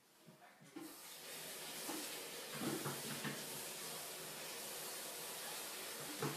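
A steady hiss begins about a second in and holds, with a few faint soft knocks over it.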